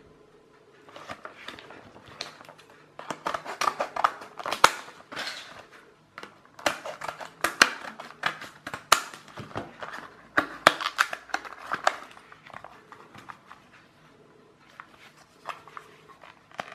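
Scissors cutting a clear plastic blister pack and the stiff plastic crackling and crinkling as it is pulled apart, with irregular sharp snaps and clicks that die down near the end.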